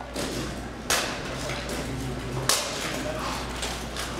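Two sharp knocks about a second and a half apart, from rattan practice weapons landing blows in armoured combat, with faint voices in the background.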